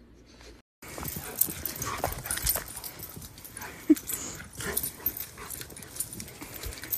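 Two fluffy puppies playing rough on bare ground: scuffling and knocking noises, with a single short bark about four seconds in.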